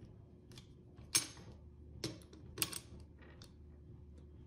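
A few light metallic clicks and taps, the sharpest about a second in, as a sheet-metal plate of a cable tie gun's mechanism is set down on top of another plate in the red plastic housing.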